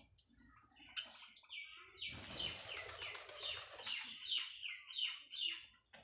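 White Java sparrow singing its mating call: a fast run of short, downward-sliding chirps that starts about a second in and comes thick and quick from two seconds on, with a rustle of wings around two seconds in.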